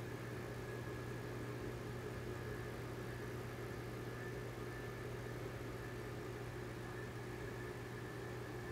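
Steady low hum of an aquarium pump running, with a fainter higher whine above it.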